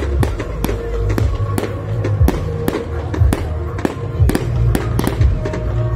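Fireworks going off in a rapid series of bangs and crackles, several a second, over background music with a heavy bass.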